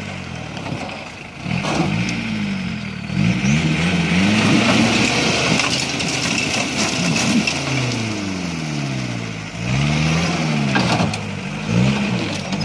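A Willys-type jeep's engine revving up and down in repeated surges as it climbs a loose gravel mound. Its tyres spin and spray dirt and stones, with a few sharp knocks from the rocks.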